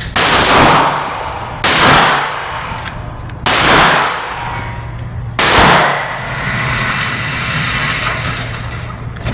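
Four shots from a Hi-Point C9 9mm pistol firing 124-grain ammunition, spaced about two seconds apart, each ringing out briefly after the crack.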